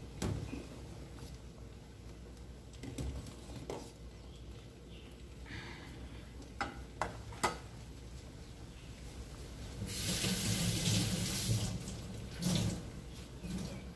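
A pot of turmeric-and-tamarind jamu boils on a gas stove, with sharp clicks and knocks as a spoon is stirred against the stainless steel pot. About ten seconds in, a louder rushing noise rises for a couple of seconds, followed by a shorter burst.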